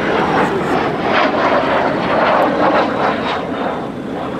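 Two-seat MiG-15UTI jet's turbojet engine, a loud rushing jet noise as the aircraft flies a display pass overhead, easing off slightly near the end.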